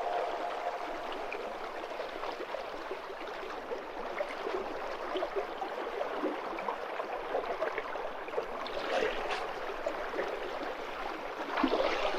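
River water running and burbling over stones, a steady babble of small splashes, with a louder splashy stretch near the end.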